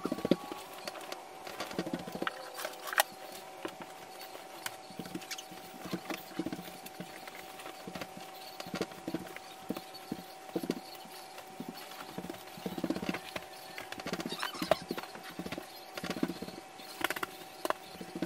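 A bed being made: bedding and pillows handled, with irregular soft thumps, rustling and footsteps on the floor, over a faint steady tone.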